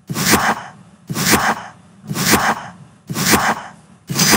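Quiz countdown timer sound effect: five short swishing hits, one a second, each fading quickly; the last carries a faint ringing tone.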